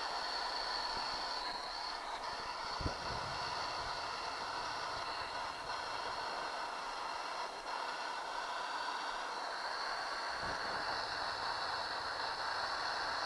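Gas torch flame hissing steadily as it heats the outboard's cylinder block to free a rusted, broken bolt, with a couple of faint knocks.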